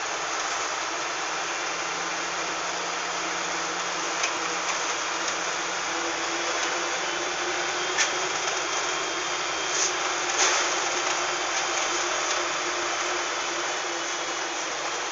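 LiAZ-5256 city bus driving between stops: steady diesel engine and road noise inside the passenger cabin, with a few short clicks or rattles, the loudest about eight and ten and a half seconds in.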